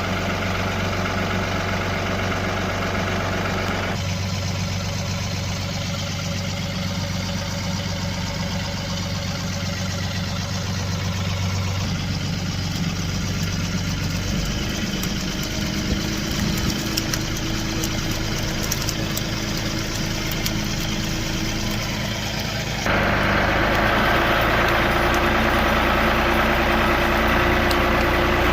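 A motor engine running steadily. Its sound shifts suddenly about four, twelve and twenty-three seconds in, and it is louder in the last few seconds.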